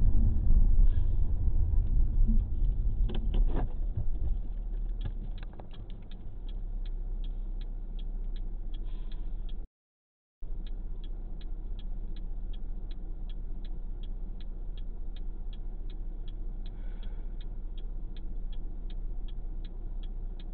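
Car's road and engine noise dying away as it slows to a stop. Then the flasher clicks steadily, about two ticks a second, over the low hum of the idling engine, with a brief dropout to silence about ten seconds in.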